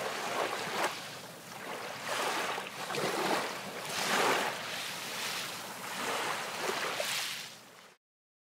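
Waves washing: a hiss that swells and fades about once a second, cutting off suddenly near the end.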